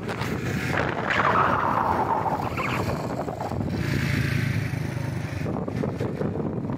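Motorcycle engine running while riding, with wind buffeting the microphone; a falling whine sounds about a second in.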